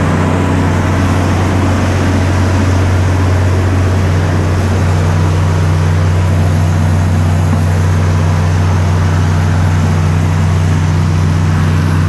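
Well-drilling rig's engine running steadily at constant speed, a loud low drone, with water gushing from the well's PVC discharge pipe as the well is drilled.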